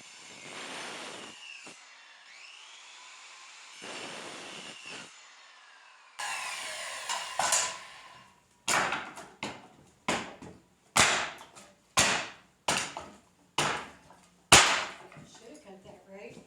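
Pallet boards being pried apart, the nails creaking and squealing as they pull out of the wood, then a run of about eight hammer blows on the pallet wood, a little under a second apart.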